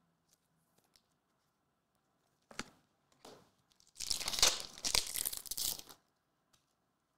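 A trading-card pack wrapper being torn open by hand: two short rustles, then a tearing, crinkling sound lasting about two seconds, starting about four seconds in.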